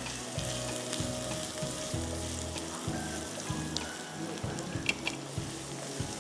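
Chopped onion sizzling as it fries in hot oil in a wok, stirred with a silicone spatula that taps against the pan a few times.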